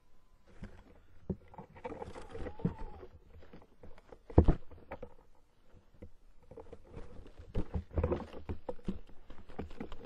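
Tawny owl scrambling inside a wooden nest box and hauling a large bird carcass out through the entrance hole: claws scratching and knocking on the boards, with a loud thump about four and a half seconds in and another flurry of knocks around eight seconds.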